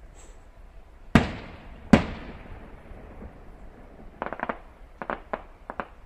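Aerial firework shells bursting: two loud booms with long echoing tails about a second apart, then a quick run of smaller sharp cracks near the end.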